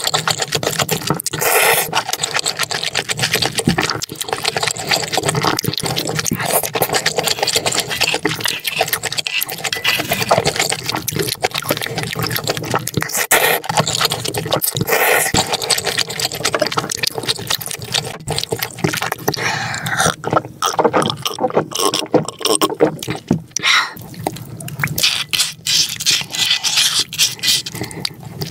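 Close-miked eating sounds: noodles in spicy sauce being slurped and chewed, with wet smacking and sucking noises throughout.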